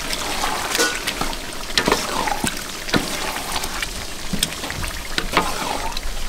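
Onions and tomatoes sizzling in oil in a large metal pot over a wood fire while being stirred with a wooden spoon: wet sizzling and squelching, with the spoon knocking and scraping against the pot every so often.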